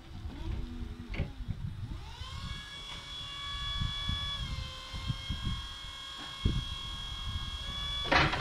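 Battery-electric Linde forklift's hydraulic pump motor whining. It rises in pitch about two seconds in and then runs as a steady whine while the mast lifts the forks. A short, loud burst of noise comes near the end.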